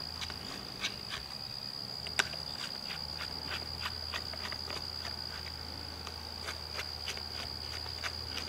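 Screwdriver working the screws of an Echo PAS 260's air cleaner housing: scattered small clicks and taps of the tip on the screw heads, one sharper about two seconds in. A steady high-pitched whine and a low hum run underneath.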